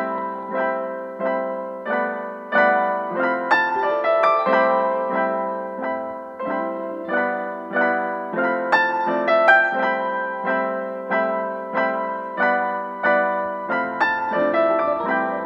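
Background piano music: a gentle, steady run of single notes, each struck and fading before the next, with a low bass note coming in near the end.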